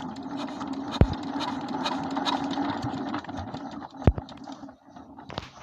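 A JD 1115 single-cylinder diesel engine being hand-cranked: it turns over fast with a steady mechanical hum for about three seconds, then runs down and stops without keeping running. Sharp clanks come about a second in and again about four seconds in.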